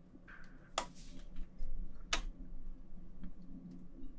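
Two sharp clicks about a second and a half apart, with a short faint rustle before the first: a spoon knocking against a glass jar of spicy seasoning paste as the paste is scooped out.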